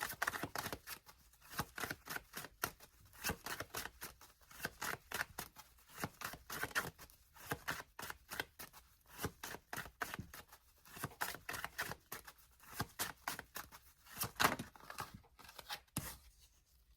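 A deck of tarot cards being shuffled by hand: a dense run of quick papery flicks and snaps with brief pauses.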